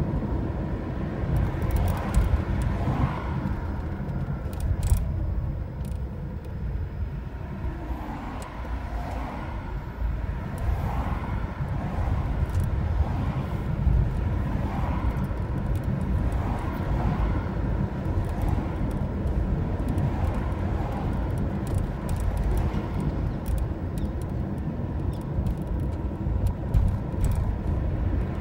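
Road and engine noise heard from inside a moving car's cabin: a steady low rumble of tyres and engine.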